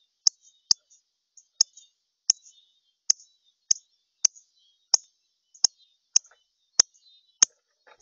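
Male northern cardinal giving a steady series of sharp, high chip calls, a little under two a second, about a dozen in all.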